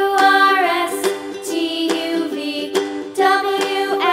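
Background music with quickly repeating notes underneath and a melody on top that slides in pitch.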